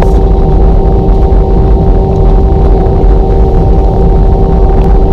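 Airliner cabin noise: a loud, steady engine drone with several steady humming tones over a deep rumble.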